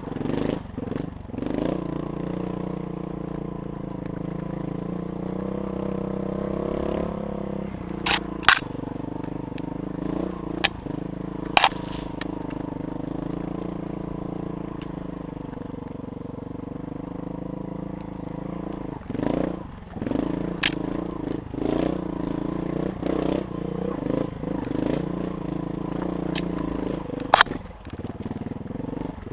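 Dirt bike engine running along a trail, held at fairly even revs at first, then rising and falling with the throttle in the last third. Several sharp cracks cut through it, twice in quick succession about a third of the way in and once near the end.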